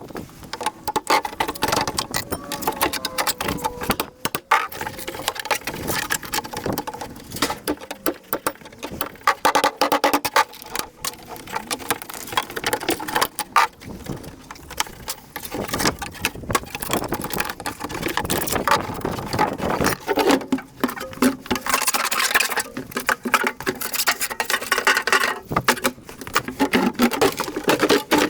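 Sheet-metal casing of a fridge-freezer being pried and broken apart by hand: a dense run of metal knocks, clatters and scrapes, with a short squealing scrape a few seconds in.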